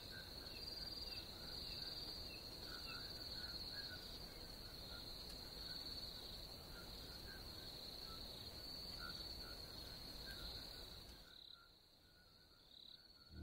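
Faint crickets trilling in a steady high-pitched chorus, with scattered short chirps lower down over a low background rumble. The sound drops away about eleven seconds in.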